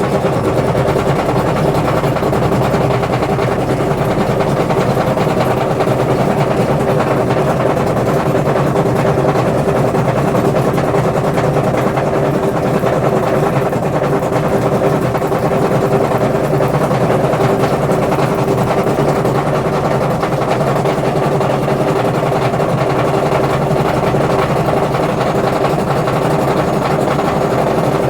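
Washing machine on its spin cycle with failed drum bearings, making a loud, steady, rapid rattle like a machine gun over a constant hum.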